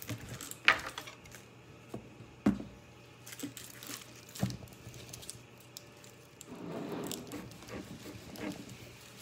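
Rustling and crinkling handling noise with a few sharp knocks, the loudest under a second in and another at about two and a half seconds, and denser rustling near the end.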